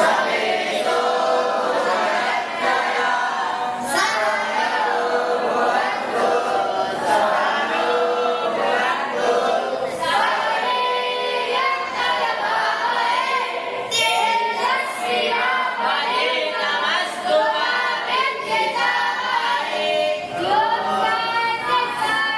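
A group of voices singing in unison, a sustained choir-like chant with drawn-out notes.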